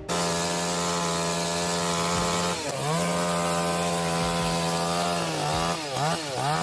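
Chainsaw running at high revs while cutting. Its pitch drops briefly under load about three seconds in and dips three more times near the end, each time picking back up.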